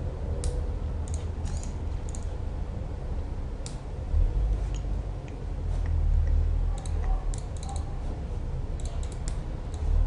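Computer mouse and keyboard clicks, scattered and sometimes in quick little runs, over a steady low hum.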